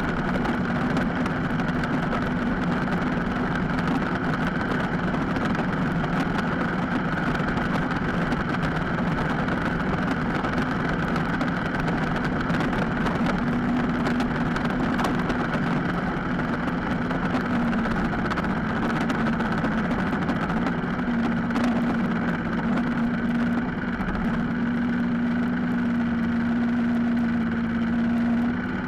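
Tractor engine running steadily as the tractor drives along the road, an even drone that holds nearly the same pitch throughout.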